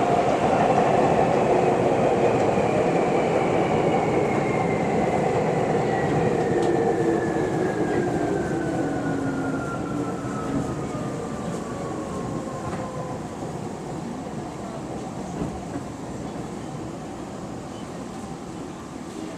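Tokyu 8500-series electric train heard from inside a passenger car, slowing down: the traction motors' whine falls steadily in pitch and fades out about thirteen seconds in. The rolling noise grows gradually quieter as the train decelerates.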